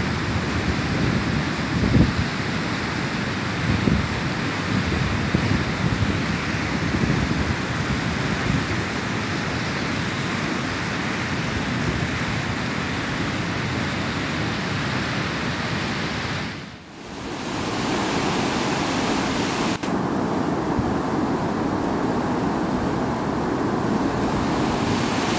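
A swollen mountain river in flood after heavy rain: fast, turbulent water rushing steadily. Gusts of wind buffet the microphone during the first several seconds. The sound drops away briefly about seventeen seconds in, then resumes.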